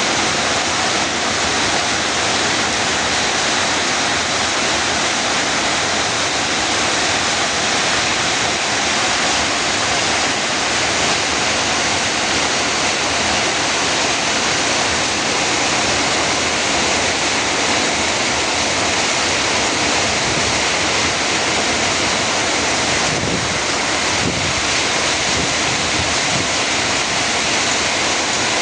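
Heavy rain from a summer rainstorm, with wind, making a dense, steady hiss that does not let up.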